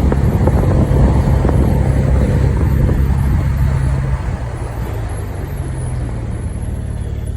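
A car driving, with engine and road rumble that eases off about four seconds in.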